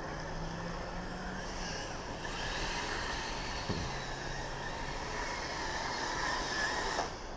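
Brushed electric motor and track drive of a Kyosho Blizzard radio-controlled snow tractor running slowly through snow, a faint wavering whine that stops about seven seconds in.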